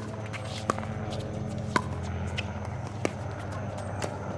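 Pickleball paddles striking the plastic ball during a rally: three sharp pops about a second apart, the middle one loudest.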